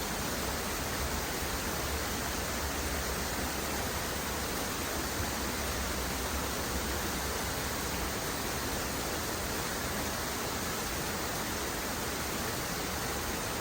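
Waterfall: an even, unbroken rush of falling water at a steady level.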